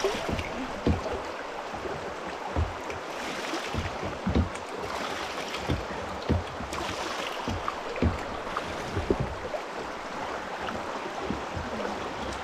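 Rapids of a small river rushing steadily past kayaks, with irregular low thumps about once a second.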